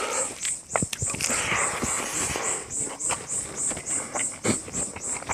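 Close-miked chewing and lip-smacking: a run of short wet clicks and smacks from a mouth eating rice and pork.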